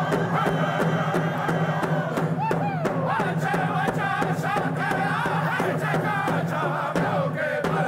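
Group of Native American singers chanting together in full voice, with gliding vocal calls, over an even beat of hand-held frame drums and a steady low drone.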